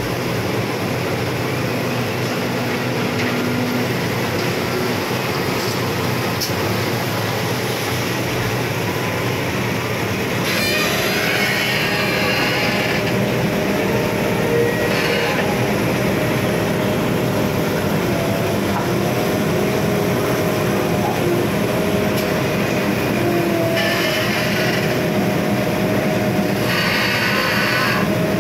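Komatsu PC210 hydraulic excavator working alongside other site machinery: a steady, loud mechanical rumble. From about ten seconds in there are wavering whine tones and several brief rasping bursts.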